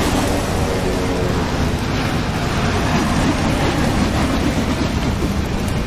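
Cartoon sound effect of a small plane flying through a column of smoke: a steady, dense rushing rumble with no breaks.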